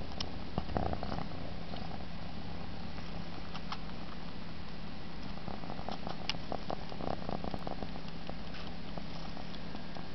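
Egyptian Mau cat purring steadily at close range, with bursts of soft clicks about a second in and again around six to seven seconds as it sucks its paw.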